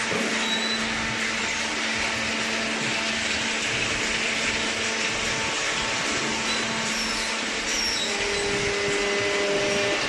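Machinery of a waste-paper baling plant running steadily: a constant loud whirring with a steady hum. A second, higher hum joins about eight seconds in.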